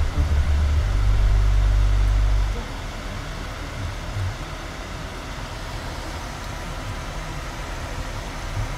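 Road and engine noise inside a moving car's cabin: a heavy low rumble for the first two and a half seconds that drops off suddenly, then a quieter steady hum.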